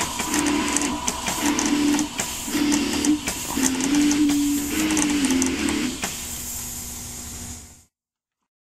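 Spooky soundtrack music with a low note pattern repeating about once a second over a steady higher tone and crackly hiss. The notes give way to a longer wavering phrase, then a low held tone that fades and cuts off near the end.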